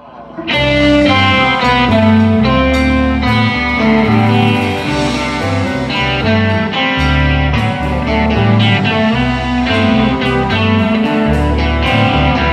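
Rock band playing live: electric guitars, bass guitar and drums in an instrumental passage without singing, coming in over the first half second and then steady and loud.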